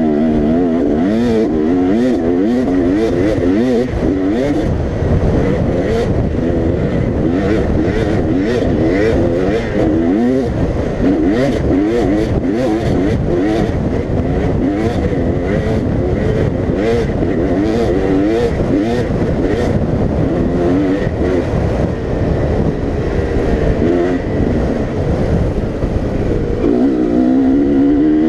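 Dirt bike engine revving hard at racing pace, its pitch swinging rapidly up and down, heard from the rider's helmet camera over a low rumble, with frequent sharp clicks.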